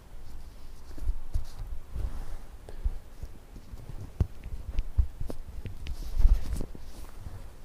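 Gloved hand handling a brain model stuck with acupuncture needles, close to the microphone: an irregular run of soft taps, clicks and low thumps as the needles and model are touched. The loudest handling, the hand gripping the model, comes about six seconds in.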